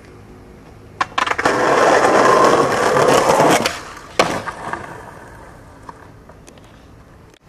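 Skateboard wheels rolling loudly on concrete, cutting out as the board leaves the ground, then a sharp clack as the board lands about four seconds in, followed by rolling that fades away.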